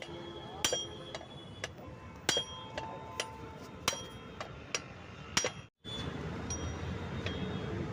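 Hammer striking a steel exhaust pipe: a series of sharp, ringing metallic clinks at about two a second. The sound cuts out briefly a little before six seconds in, after which a few fainter taps sound over a steady hum.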